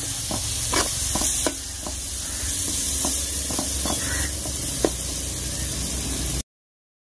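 Tomato-onion masala sizzling in hot oil in a metal pot while a slotted spatula stirs and scrapes it against the pot, with scattered clicks. The sound cuts off suddenly about six seconds in.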